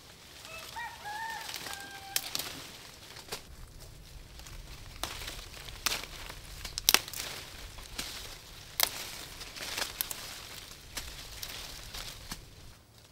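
Rambutan branches being pulled and broken by hand: leaves rustling, with several sharp snaps of stems as the fruit clusters are picked off. A bird gives a few short chirps in the first two seconds.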